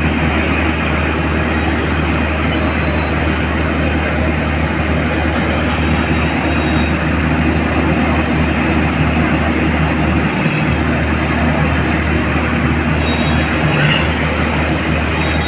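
Crane's engine running steadily, a constant low mechanical drone with rumbling noise over it.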